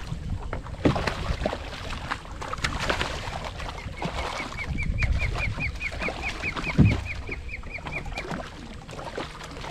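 A hooked red drum thrashing and splashing against the side of a skiff as it is grabbed by hand, with two sharp knocks, the louder one near the end. Through the middle a bird calls a rapid series of short, hooked notes, about four a second, for around four seconds.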